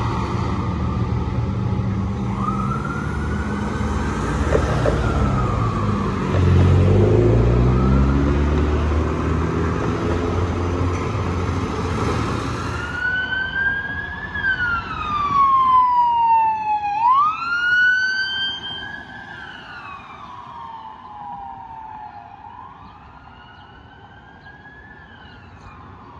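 Fire department aerial ladder truck driving past close by, its engine loud and its siren wailing, the engine note dropping in pitch as it goes by. After that, a siren goes on wailing in slow rising and falling sweeps, fading as it moves away.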